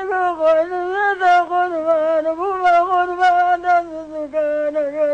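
An elderly Kurdish woman keening a lament for her dead sons: one long sung wail whose pitch wavers and bends.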